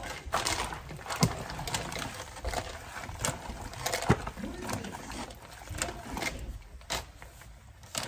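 Spatula stirring a thick tortellini, meat and cream-cheese mix in a slow cooker lined with aluminum foil: irregular scrapes and clicks, with the foil crinkling.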